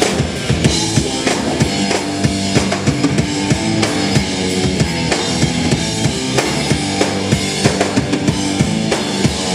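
Rock band music with a full drum kit, bass drum and snare, keeping a steady beat under sustained electric guitar and bass.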